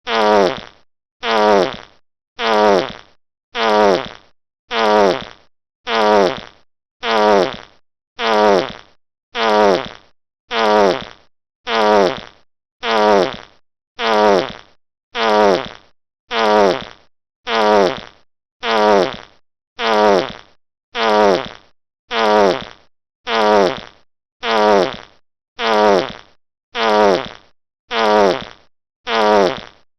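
A fart sound effect: the same short fart played again and again, about once a second. Each one starts loud and drops in pitch as it fades.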